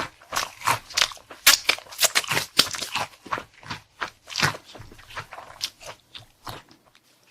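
Close-miked chewing of crunchy food, a quick run of sharp crunching bites that thins out near the end.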